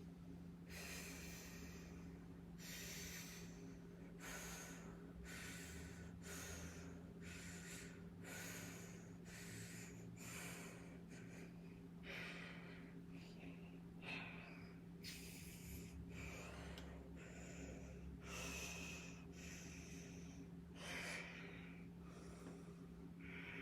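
A woman breathing hard with the effort of lifting: short, quick breaths in and out, about one a second, faint over a steady low hum.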